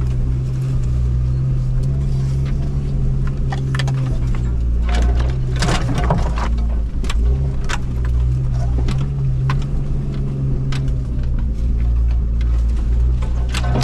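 A 1997 Jeep Wrangler TJ's engine running steadily at crawling speed, heard from inside the cab. Frequent sharp clicks and knocks come from the Jeep jostling over the rough, tight trail, and they are thickest around the middle.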